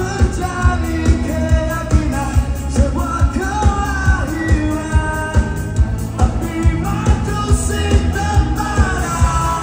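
Live rock band playing: a male singer singing over electric guitar and a steady drum beat of about two hits a second.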